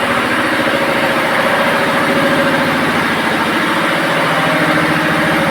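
A machine's engine or motor running steadily, with a fast, even pulse like an engine at idle.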